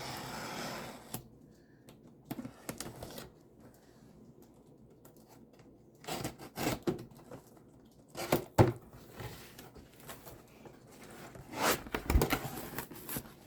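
Cardboard box being opened: a steady ripping of tape or cardboard that stops about a second in, then scattered knocks, clicks and rustles of cardboard flaps and packing, with a few louder bangs.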